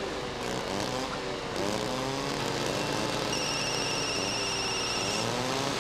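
Engines of logging machinery running, their pitch rising and falling. A mobile phone rings with a high electronic trill from about three seconds in to about five seconds.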